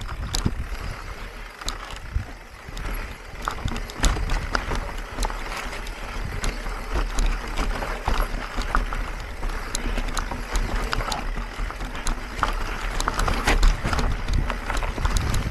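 Mountain bike ridden over rough ground, wind buffeting the microphone with a low rumble, and frequent clicks and rattles from the bike over the bumps.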